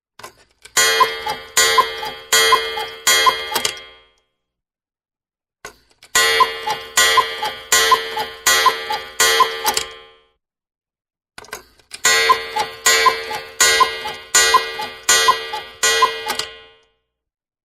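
Cuckoo alarm clock chiming in three bursts of evenly repeated ringing strikes, about six to eight strikes each at roughly one and a half per second, with silent pauses between bursts. A faint click comes just before each burst.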